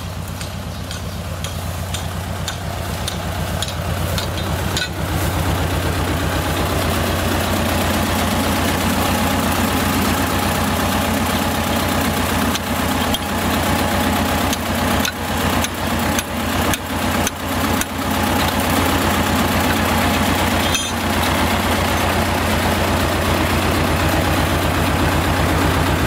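Tractor engine idling with a steady low clatter, growing louder over the first several seconds. A run of sharp knocks comes about halfway through.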